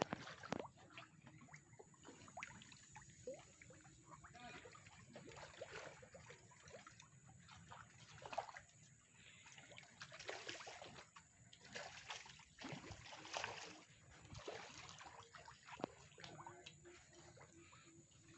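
Faint, irregular small splashes and sloshing of water around floating fish cages.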